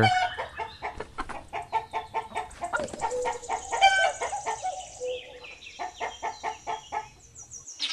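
Chickens, a rooster among hens, clucking in short repeated calls, loudest about four seconds in. A steady high-pitched hiss runs behind them through the second half.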